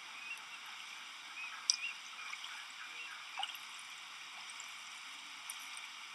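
Faint trickling and dripping water, with a few small, sharp drips.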